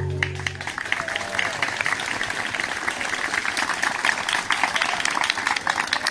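Audience applauding, a dense patter of many hands, while the last held note of the dance music fades out within the first second.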